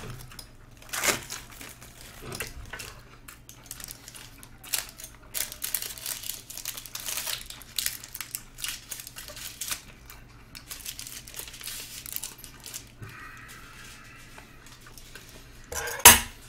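Crinkling and tearing of the wrapper around a disposable spoon and chopsticks as it is torn open and the utensils are pulled out, in irregular crackles. A louder knock comes near the end.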